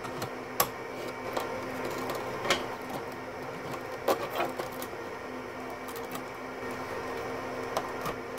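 A handful of sharp clicks and light knocks as SAS cables and plastic parts are handled inside an open Dell PowerEdge R710 server chassis, over a steady hum. The loudest click comes about half a second in, with a cluster around four seconds in.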